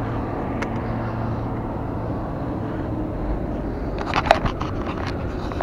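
Steady outdoor background rumble with a faint low hum. About four seconds in come a few sharp clicks and rustles as the worn camera moves with the angler.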